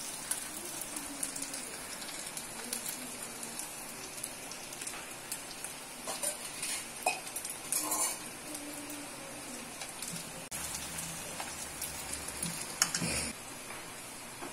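Onion bonda batter balls deep-frying in hot oil in a steel kadai: a steady sizzle with fine crackling, and a few louder clicks about eight and thirteen seconds in.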